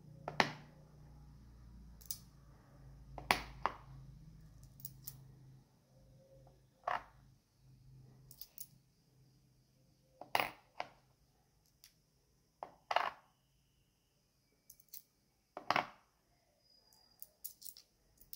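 Brass-coloured coins being set down one by one on a hardcover notebook cover: irregular sharp clicks and clinks a second or two apart.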